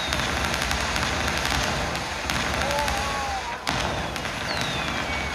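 Fireworks crackling steadily with many quick pops, and one sharp bang a little past halfway through.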